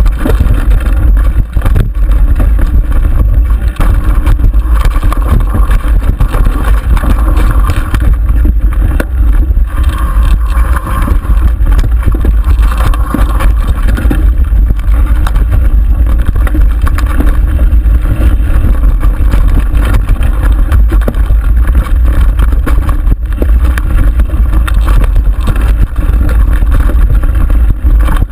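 Mountain bike descending a rough dirt singletrack at speed, heard through a bike-mounted camera. A constant heavy wind rumble on the microphone runs under continuous rattling and knocking from the bike over the uneven trail.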